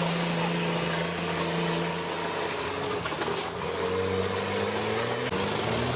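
School bus engine running steadily, its pitch dropping about halfway through and then rising near the end as it revs.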